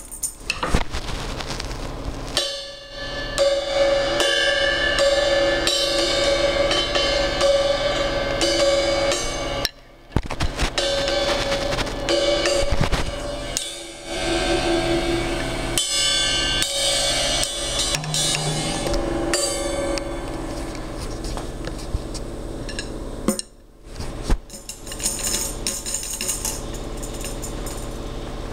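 Drums and cymbals being played, the cymbals ringing in long sustained washes over many quick strikes, broken by a few brief pauses.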